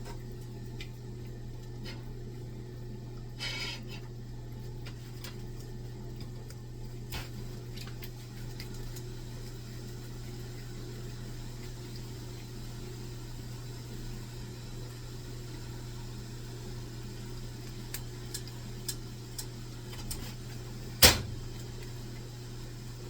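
Cookware and utensils being handled in a kitchen over a steady low hum: scattered light clicks, a short clatter a few seconds in, and one sharp loud knock near the end, the loudest sound.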